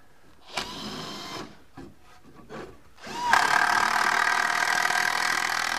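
Power drill driving a screw through a guardrail post bracket into a 2x4 wooden rail. A short spin comes about half a second in, then a longer, louder run starts a little after three seconds, rising quickly in pitch and then holding steady.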